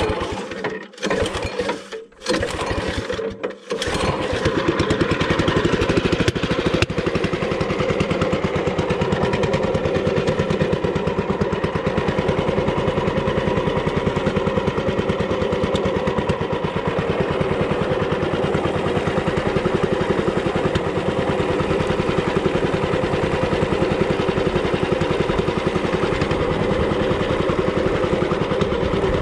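Small boat engine running steadily with an even, rapid firing pulse, starting about four seconds in after a few short broken sounds.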